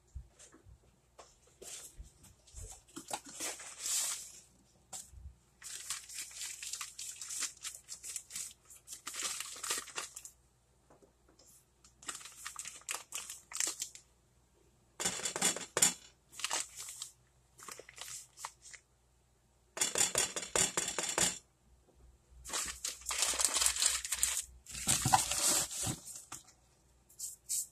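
A bag of cornstarch crinkling and rustling in a series of short bursts as it is handled and scooped from with a measuring spoon.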